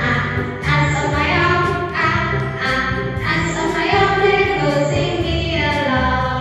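A children's phonics song for the letter A: a voice sings over a steady, rhythmic backing track.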